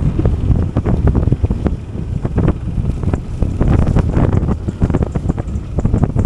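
Wind buffeting the microphone of a Yamaha NMAX 155 scooter while it is ridden, with a low rumble and frequent short knocks and crackles.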